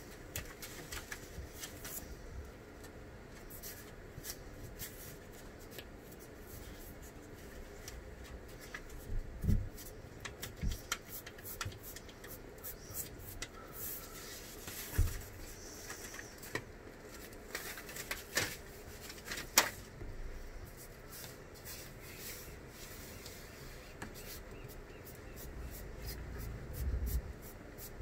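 Handling noises from laying a strip of synthetic teak flooring by hand on a boat's cabin floor: rustling and rubbing as it is pressed down, with scattered clicks and a few sharper knocks, the loudest about two-thirds of the way through.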